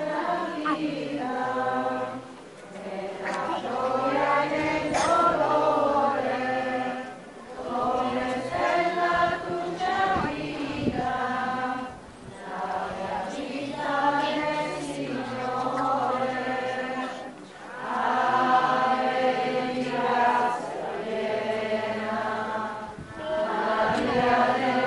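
A crowd of people singing a religious hymn together, in phrases a few seconds long with short pauses between.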